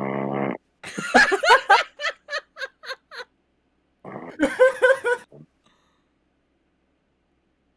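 A person laughing in short stifled bursts, first for about two seconds and again for about a second, after the tail of a snore in the first half second.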